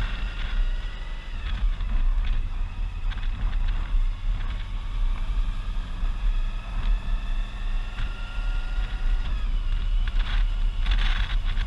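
Motorcycle riding along a road: the engine's pitch rises and falls with speed, over a heavy low rumble of wind and road noise.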